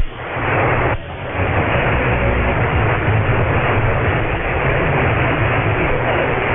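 Radio static: a steady rushing hiss from an AM radio's audio, relayed over a VLF link and demodulated on upper sideband, with two brief dropouts in the first second or so.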